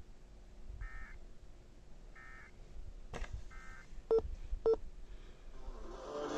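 Emergency Alert System digital data bursts: three short warbling tone bursts, each about a third of a second and roughly a second apart, the end-of-message code that closes a relayed alert. Then a click and two short loud beeps, with a louder rush of noise starting near the end.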